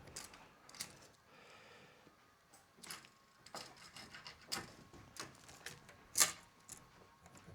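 Scattered light clicks and taps of hand tools and timber being handled while a cut is marked out, with a brief rustle early on and the sharpest tap about six seconds in.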